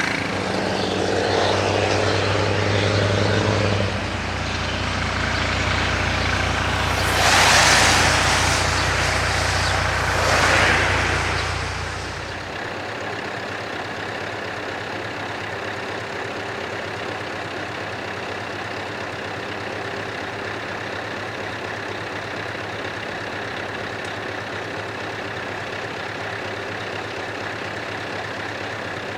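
Scania R500 V8 truck engine with open exhaust pipes, running loud and deep while pulling away, with two loud hissing bursts about seven and ten seconds in. About twelve seconds in it drops to a quieter, steady engine sound that lasts to the end.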